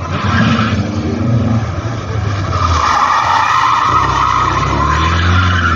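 Volkswagen Golf Mk2 driven hard through slalom cones, its engine revving up and easing off. Its tyres squeal, briefly at first and then loudly and steadily from about three seconds in as it slides through a tight turn.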